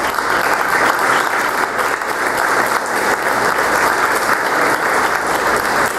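Audience applauding: a steady, even patter of many hands clapping.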